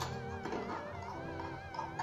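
Background music: a melody of wavering, vibrato notes over held tones.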